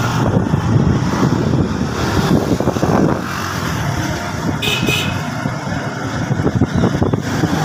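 Vehicle engine running and wind noise on the microphone while riding along a road, with a short high-pitched beep a little past halfway.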